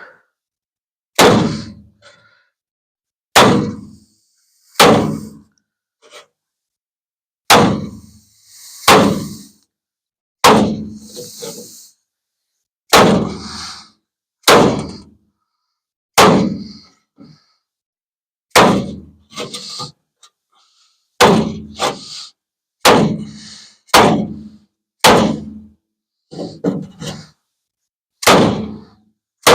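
Repeated hammer blows on a wooden body block held against dented truck sheet metal, each a sharp clanging whack with a short ring as the dent is knocked back out from behind. There are about seventeen blows, spaced irregularly every one to two seconds.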